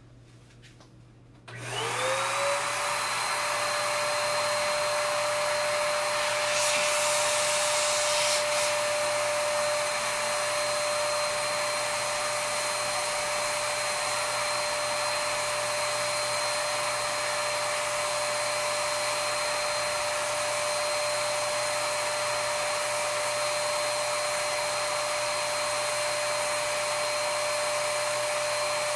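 Earlex 5500 HVLP spray station's turbine switching on about a second and a half in, its whine rising quickly to a steady pitch, then running steadily with a rush of air as paint is sprayed. A brief extra hiss comes a few seconds after it starts.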